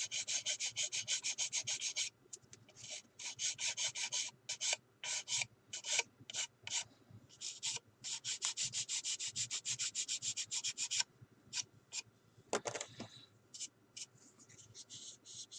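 Sanding stick scraping back and forth over hardened filler on a plastic model car body, taking the filler's ridges and high spots down flush. Quick strokes, about four or five a second, come in two steady runs, at the start and again from about halfway, with scattered single strokes between and after.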